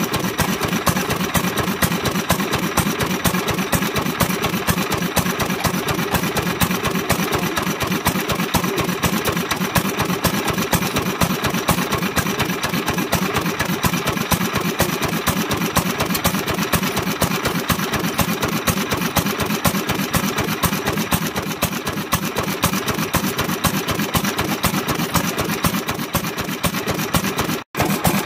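A BEST single-cylinder stationary kerosene engine (Sekiya Nōki, Matsuyama) running steadily, firing in a quick, even rhythm. The sound drops out briefly near the end.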